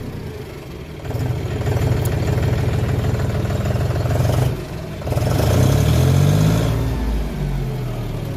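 John Deere 5205 tractor's three-cylinder diesel engine being revved up from idle. It jumps to high revs about a second in and holds there, drops back briefly around the middle, then climbs again and winds down toward the end.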